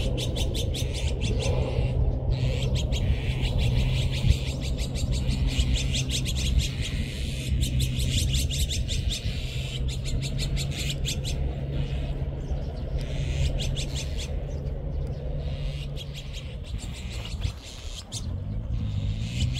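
A flock of azure-winged magpies calling: fast, chattering calls in repeated bursts, over a steady low hum.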